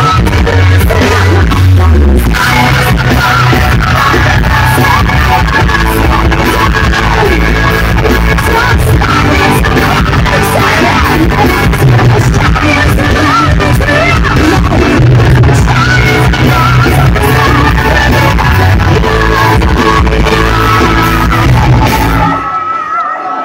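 Rock band playing live at high volume: electric guitars, bass guitar and drums under a woman singing lead vocals. The music cuts off suddenly about a second before the end as the song finishes.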